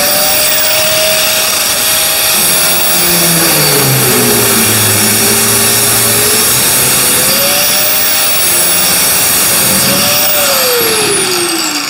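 Handheld electric angle grinder with a thin cutoff wheel cutting through a large sheet of steel. The motor's pitch sags as the wheel bites and recovers a few times, then falls away near the end as the cut finishes and the grinder spins down.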